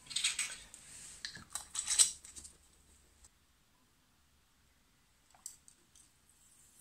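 Small plastic items handled on a workbench: a quick run of clicks and knocks, the loudest about two seconds in, then near quiet with a couple of faint taps near the end.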